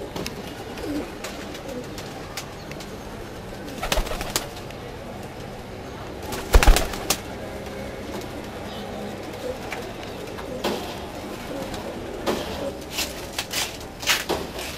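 Domestic pigeons cooing in a loft, with scattered sharp clicks and knocks; the loudest is a thump about six and a half seconds in.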